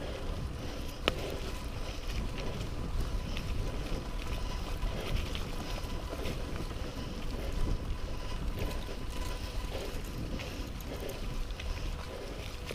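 Mountain bike being ridden on a dirt trail: a steady rumble of wind on the microphone and trail noise, with scattered rattles and clicks from the bike and a sharp click about a second in.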